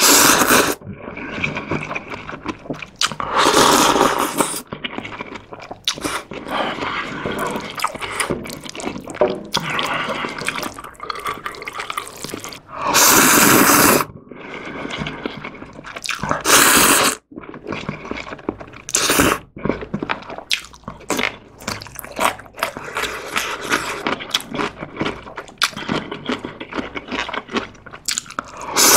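Close-miked eating of soupy instant ramyeon: several long, loud noodle slurps, the biggest about halfway through, with wet chewing and small mouth clicks between them.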